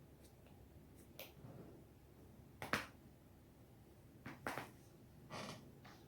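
Spinal joints cracking: several sharp pops at irregular intervals, some coming in quick pairs. The loudest pops come about two and three-quarter seconds and four and a half seconds in.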